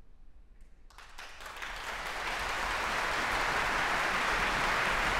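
Audience applauding at the end of an aria: a few scattered claps about a second in, quickly swelling into full, steady applause.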